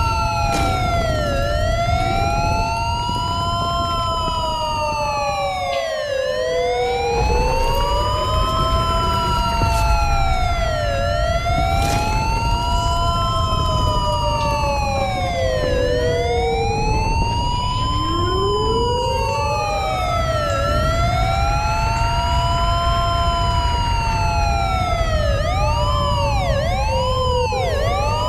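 Emergency-vehicle sirens wailing: two or more electronic sirens overlap, each sweeping slowly up and down in pitch. About twenty-five seconds in they switch to a faster yelp.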